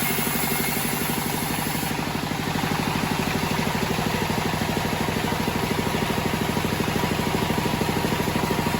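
Engine of a homemade bandsaw sawmill running steadily with an even, rapid pulse. A high hiss over it stops about two seconds in.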